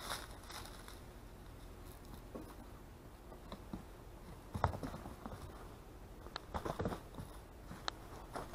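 Scattered light crunches and crackles of a German shepherd puppy's paws and footsteps on icy snow and a snow-covered mat. The sharpest crunch comes a little before halfway, with a cluster about two-thirds through.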